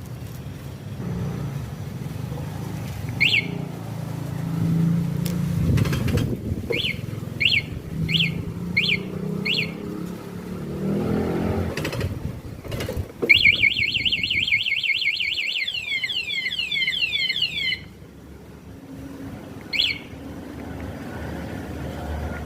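Motorcycle anti-theft alarm siren chirping, each chirp falling in pitch. First a single chirp, then five evenly spaced chirps, then a fast string of chirps lasting about four seconds that cuts off suddenly, and one last chirp near the end. A low rumble runs underneath through the first half.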